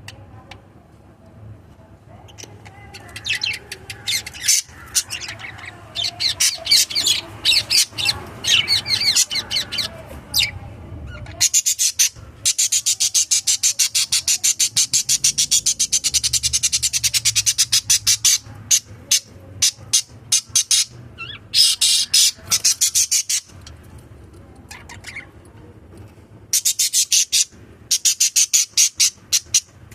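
Small pet parrots chattering: rapid trains of high, sharp chirps in bouts, the longest lasting about six seconds near the middle, with quieter twittering between bouts.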